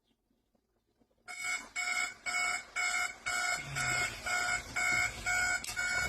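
Electronic alarm clock beeping in quick repeated pulses, about two a second, starting a little over a second in.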